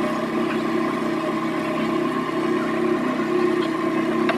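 Small motorboat's engine running steadily as the boat moves along the river.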